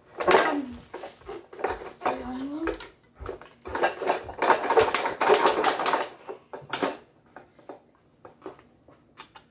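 Plastic toy garbage truck being opened and tipped by hand. Its plastic parts click and rattle in a rapid run, loudest in the middle.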